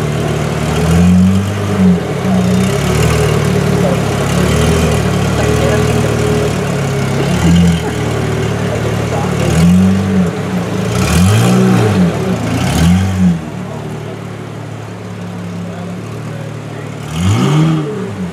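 Pagani Zonda F Roadster's 7.3-litre Mercedes-AMG V12 idling and revved repeatedly with short throttle blips, each rising and falling quickly in pitch. Several blips come in the first half, with one more near the end.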